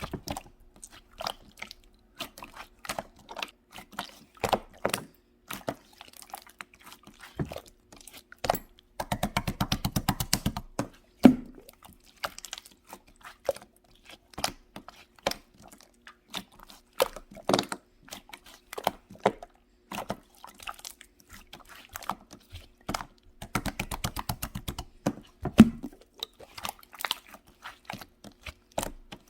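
Jelly slime being pressed, stretched and poked by hand: a string of sticky clicks and small pops, with two stretches of rapid crackling, about nine seconds in and again near twenty-four seconds.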